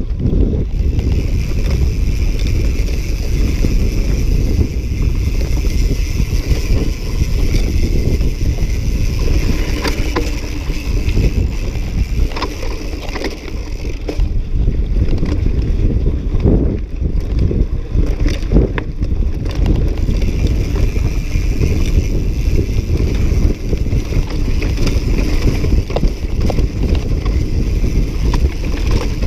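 Cross-country mountain bike descending a dirt and grass trail: a steady rumble of tyres on the ground with wind rushing over the microphone. Sharp knocks and rattles from the bike over rough ground come mostly in the middle.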